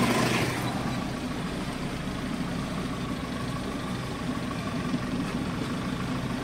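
Truck engine idling steadily. A louder rush of noise dies away in the first second, leaving the even idle.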